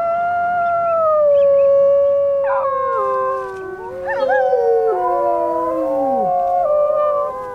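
A pack of Arctic wolves howling in chorus. One long, steady howl is joined after about two and a half seconds by several overlapping howls at different pitches, some sliding down at their ends, before the chorus fades near the end.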